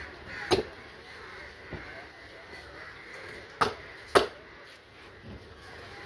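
Cleaver chopping into a large fish on a wooden block: a sharp chop about half a second in, two more close together a little past three and a half and four seconds, and a few lighter knocks between.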